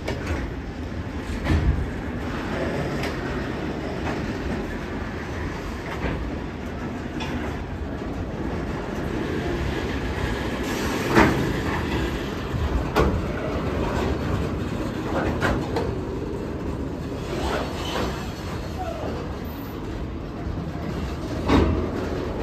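Goods train of covered hopper wagons rolling past: a steady rumble of steel wheels on the rails, broken by irregular sharp clanks, the loudest about eleven seconds in.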